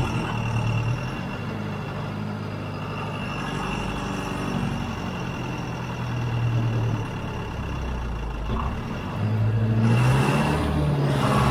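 John Deere 410 backhoe's engine running under work, its pitch rising and falling, with a louder rev-up about nine seconds in.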